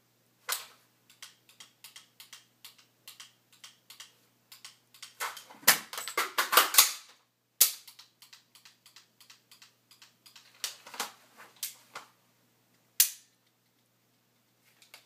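Sharp metallic clicks and clacks of an empty AR-15 rifle and a 9mm pistol being worked in a dry-fire transition drill: magazine changed, bolt released home, triggers dry-fired. Scattered light clicks give way to a quick run of loud clacks a little before the middle, with more clusters later.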